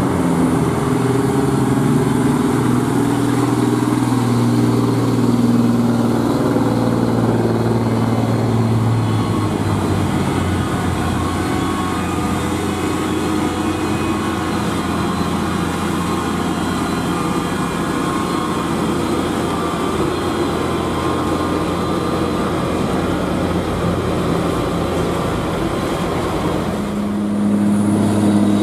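Heavy diesel trucks passing one after another at low speed, engines running under load with road noise. For the first third, engine notes waver as a truck pulls through the bend. Then comes mostly even engine and tyre noise, and near the end a new steady low engine note comes in from another truck close by.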